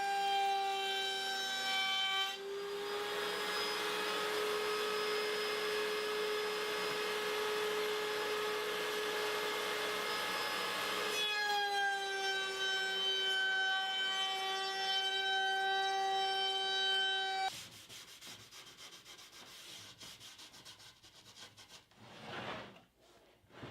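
A woodworking power tool runs with a steady whine, cuts through a maple board for about nine seconds with a coarse sawing noise over the whine, runs free again, then cuts off suddenly. Faint rubbing of wood follows.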